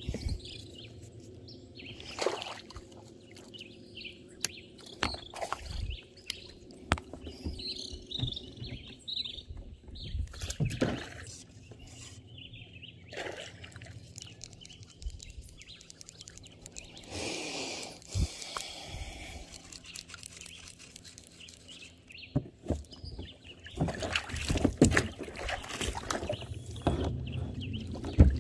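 Scattered knocks, clicks and rubbing from a fly rod and reel being handled aboard a plastic fishing kayak, with birds calling now and then.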